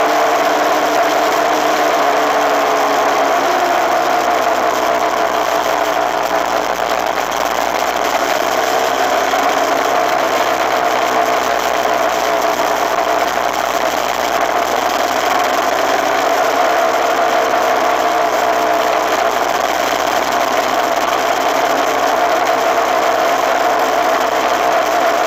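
Suzuki RMX250S single-cylinder two-stroke dirt bike engine running steadily under way, its pitch wavering slightly with the throttle, over a steady rush of wind and road noise.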